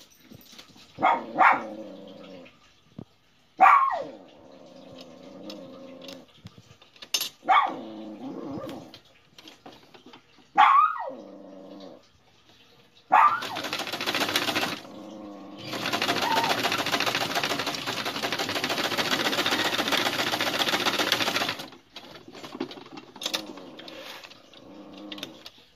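A dog barking, single sharp barks a few seconds apart, mostly in the first half. A sewing machine stitching in two runs, a short one about 13 seconds in and a longer, louder one in the second half.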